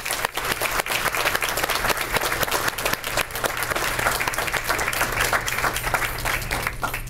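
Audience applauding after a speech: dense, steady clapping that starts to thin out near the end.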